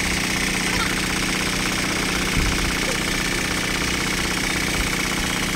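Large pneumatic impact wrench running free on a test run after being repaired and reassembled, with a steady, fast rattle.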